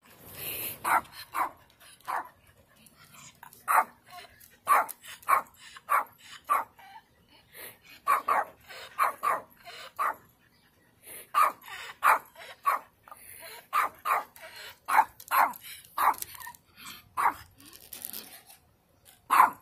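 Small dog barking over and over in short barks, a few a second in runs, with brief pauses between the runs.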